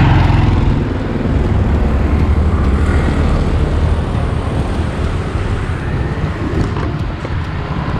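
Steady low rumble of a moving car: road and engine noise.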